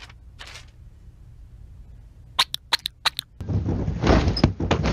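Cartoon sound effects: a quick run of five or six short squeaky clicks, then a loud rushing whoosh lasting about a second and a half as the Simpson family dashes onto the couch.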